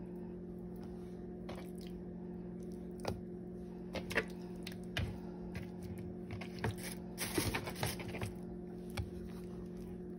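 Raw chicken strips being dropped into a bowl of breading flour and tossed by hand: scattered soft taps and squishes, busiest about three-quarters of the way through, over a steady low appliance hum.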